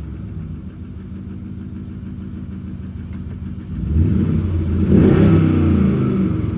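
2011 vehicle engine idling, then revved once about four seconds in and easing back toward idle. It is being run after injector 7 was replaced to cure a misfire, and it sounds different.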